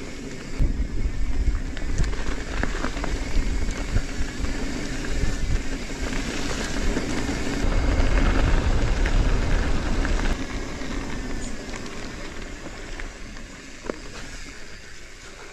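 Electric mountain bike ridden with its motor off, its tyres rolling over mud and dirt track with scattered clicks and rattles from the bike and stones, over a low rumble. It is loudest in the middle and eases off after about ten seconds.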